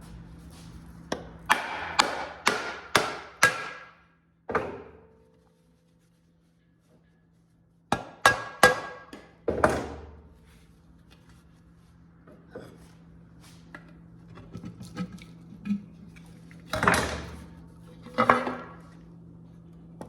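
Hammer blows on metal with a short ring after each: a quick run of five strikes about half a second apart, one more, then after a pause a second group of four and two last blows near the end.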